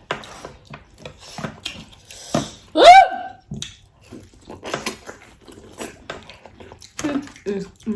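Clicking and crackling of seafood shells being picked at and eaten, with chewing. About three seconds in comes one loud, short, high yelp that rises and falls in pitch.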